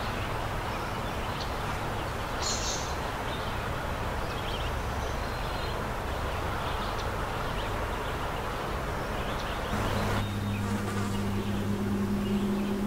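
A flying insect buzzing close to the microphone: a steady low hum that grows louder about ten seconds in.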